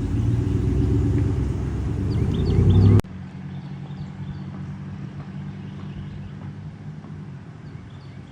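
Car engine and road rumble, growing louder for about three seconds, then an abrupt cut to a quieter, steady engine hum with faint high chirps over it.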